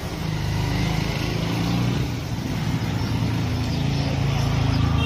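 A motor vehicle engine running close by: a low, steady hum that shifts in pitch a few times.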